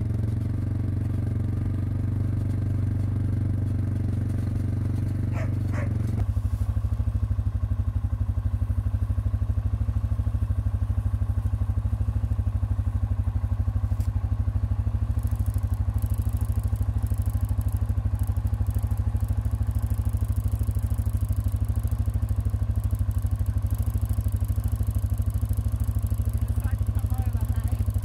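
Farm motorbike engine running, changing about six seconds in to a steady, evenly pulsing idle.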